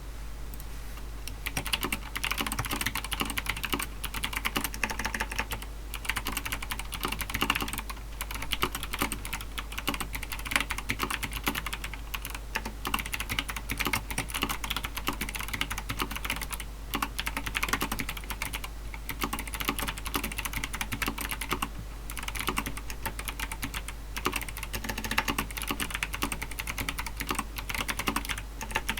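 Typing on a mechanical keyboard fitted with lubed Kailh Box Jade clicky switches, in a Corsair Strafe case with foam inside. A fast run of sharp clicks starts about a second in and is broken by a few brief pauses.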